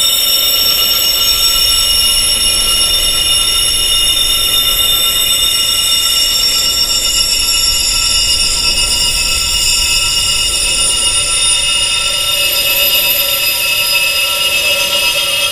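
Wind chimes ringing together in a dense, continuous high-pitched shimmer: many metal tones held at once with no separate strikes standing out.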